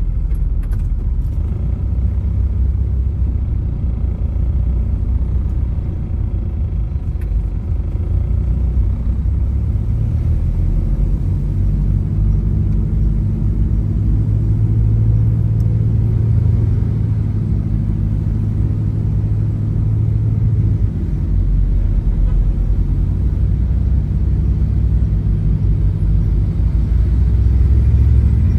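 Car on the move, heard from inside the cabin: a steady low rumble of engine and road noise that swells a little in the middle.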